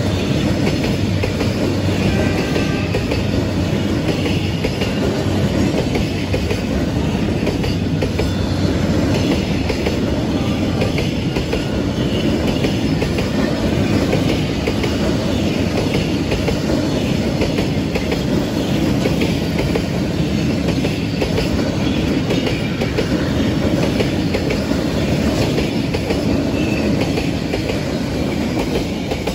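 Freight train rolling past close by: a steady rumble and clatter of wagon wheels over the rails.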